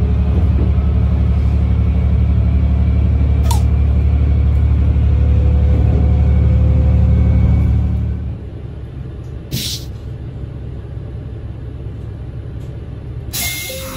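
Diesel engine of a KiHa 120 railcar running under power with a loud, steady low drone, heard inside the car, then throttling back about eight seconds in, leaving a quieter rolling rumble. A short hiss of air, like the air brake, follows a second and a half later.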